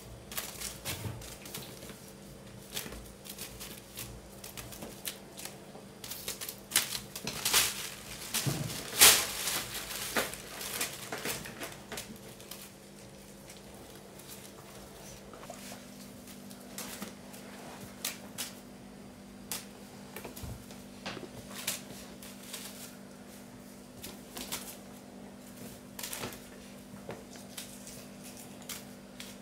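Burmese kittens playing on a ceramic tile floor: irregular clicking and scrabbling of claws and paws on the tiles. The clicks are busiest and loudest about eight to ten seconds in.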